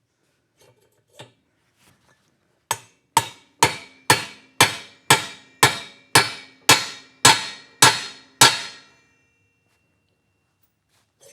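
A hammer striking about twelve times, roughly two blows a second, each with a short metallic ring, driving the exhaust valve seat into an Aermacchi big-bore cylinder head. Faint clicks come before the first blow.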